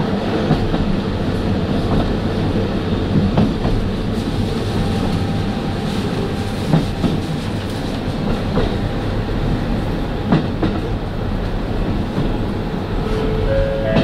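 Running noise inside a KiHa 40 diesel railcar under way: a steady rumble of the diesel engine and wheels on the rails, with an occasional sharp knock as the wheels cross rail joints.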